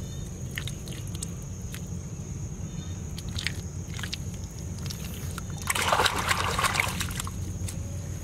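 Bare hands patting and smoothing a wall of wet mud, with soft wet slaps and squelches and a louder sloshing of muddy water lasting about a second near the end.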